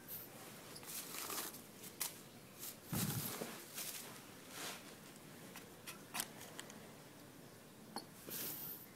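Scattered soft scratches, rustles and taps of a cat moving about in and around a cardboard box, with one dull thump about three seconds in.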